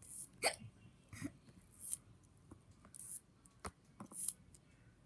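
Zippy bracelet fidget toy being zipped back and forth: short high zipping rasps about once a second, with a few sharp clicks between them.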